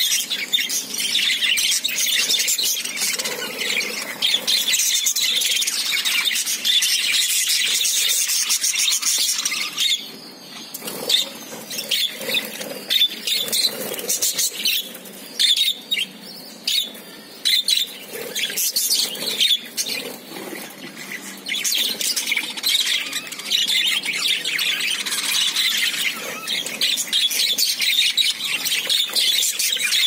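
A flock of budgerigars chattering and chirping in a continuous high-pitched din. Partway through it thins to separate chirps for several seconds, then the dense chatter returns.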